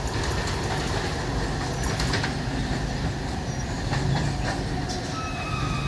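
Electric multiple-unit local train running away along the track: a steady rumble with scattered clicks of its wheels passing over rail joints.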